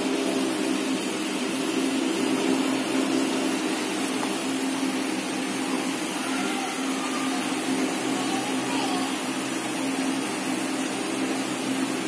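A steady electric motor hum with a constant low drone that does not change.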